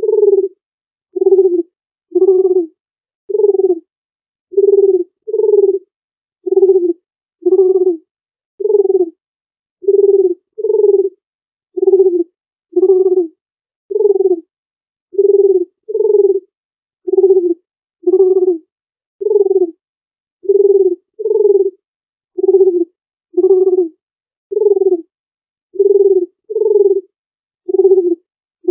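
Dove cooing: short, low coos repeated steadily about once a second, often in pairs, each coo dropping slightly in pitch.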